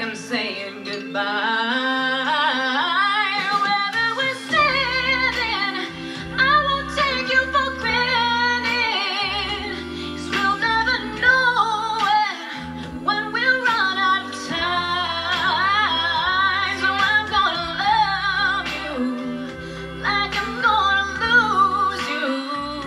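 A woman singing a pop ballad into a microphone, her voice wavering with vibrato over musical accompaniment with a steady bass line.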